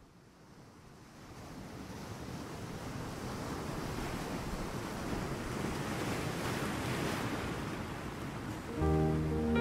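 A rushing, surf-like noise swelling up from silence over several seconds. Music with sustained notes comes in near the end.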